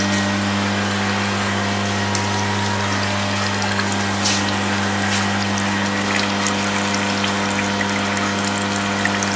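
Steady low hum under a constant hiss with faint scattered crackles: the running equipment of an agarwood oil distillery, where wood chips are boiled in steel stills.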